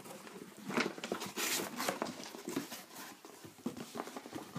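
Rustling and handling noises in short bursts as a package is opened by hand.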